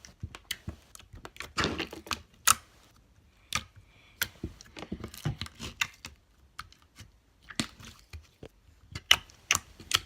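Clear homemade slime being stretched and squeezed by hand, making irregular sticky clicks and pops, one sharper crack about two and a half seconds in.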